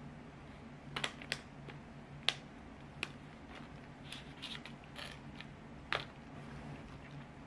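Plastic snack bag of chocolates being handled and set down, giving a string of sharp crinkles and clicks, over a faint steady low hum.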